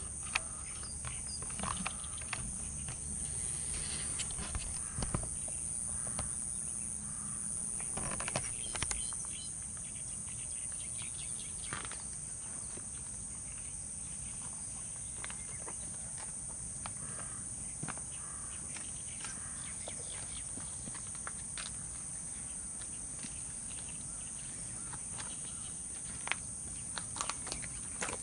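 Steady, high-pitched insect chorus, with scattered light clicks and knocks and a low rumble during the first third.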